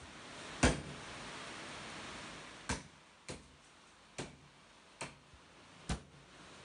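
Six sharp kitchen knocks on a hard surface at uneven intervals, the first about half a second in and the loudest, over a faint hiss.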